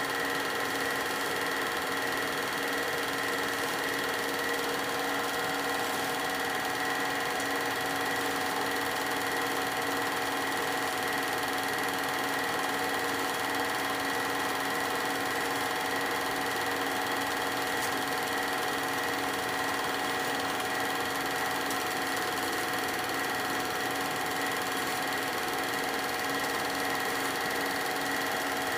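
Film projector running: a steady mechanical whir and hum with a constant hiss, unchanging throughout.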